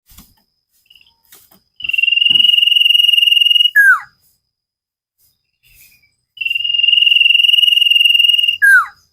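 Common iora (cipoh) singing its 'sirtu' song twice: each phrase is a long trilled whistle held on one pitch for about two seconds, ending in a short note that drops steeply in pitch.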